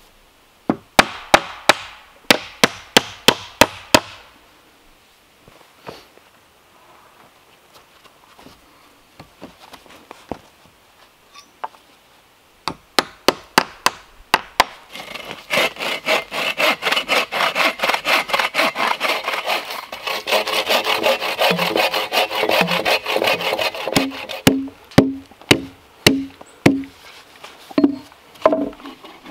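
A hand saw cutting through a wooden plank: a short run of brisk strokes, then after a pause a long run of fast, steady sawing. Near the end, separate sharp blows of a hatchet chopping into a log.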